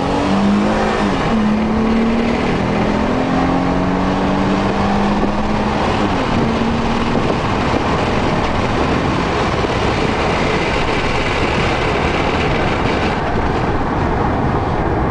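Porsche Panamera engine heard from inside the cabin, accelerating with its pitch rising and stepping down at quick upshifts in the first seconds, then holding a steady note. After about seven seconds only the steady road and wind noise of the car at speed remains.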